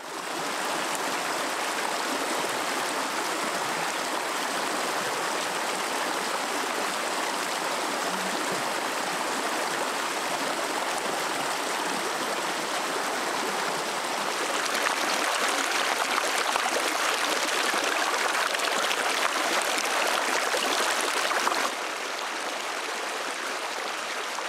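Shallow mountain stream running over rocks, a steady rushing babble. It gets a little louder about two-thirds of the way through and drops back sharply near the end.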